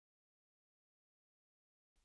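Digital silence: nothing to be heard.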